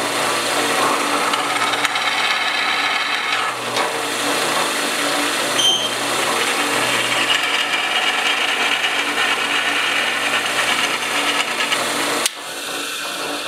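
Drill press running with a 3/16 inch bit boring out a pilot hole in a flat metal bar: a steady motor hum under the grinding noise of the bit cutting metal. About 12 seconds in, the cutting stops suddenly and the remaining machine sound fades away.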